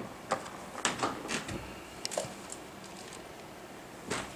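Scattered light clicks and taps of small hand tools being handled on a repair bench, with a sharper tap near the end.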